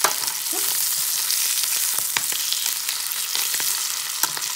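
Lamb chops sizzling in butter in a frying pan, a steady hiss, with a few sharp clicks of steel tongs as the chops are turned over.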